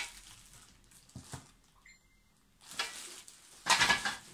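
Plastic packaging bags crinkling as wrapped table legs and parts are handled. It is quiet at first, then the crinkling starts past the halfway point and is loudest near the end.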